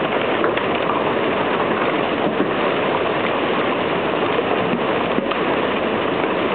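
Heavy thunderstorm rain pouring down, a steady dense hiss with a few faint knocks.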